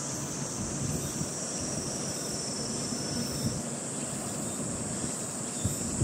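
Outdoor evening ambience: insects chirring in a steady high band, over an uneven low rumble of wind on the microphone.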